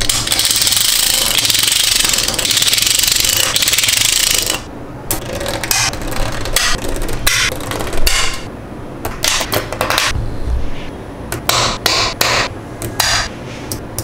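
Small magnetic balls clicking together: a dense rattling hiss for about the first four and a half seconds, then a run of separate, irregular sharp clacks as balls snap onto one another.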